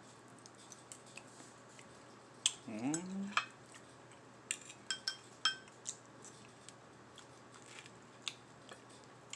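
Utensil clinking against a plate: scattered light taps, a cluster of them around the middle, a few ringing briefly.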